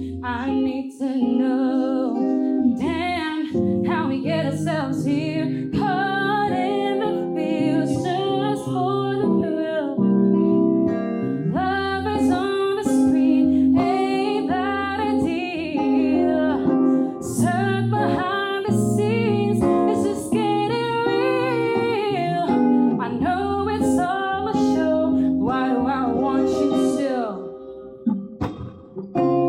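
A woman singing live with guitar accompaniment. Near the end the music drops away briefly before the guitar comes back in.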